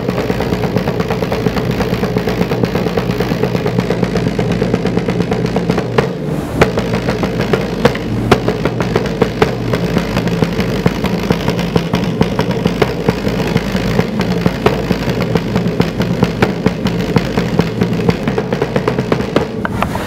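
Wayuu kasha, a large wooden drum with rope-laced hide heads, beaten with two sticks in a fast, unbroken rhythm of sharp strokes over the drum's low ring.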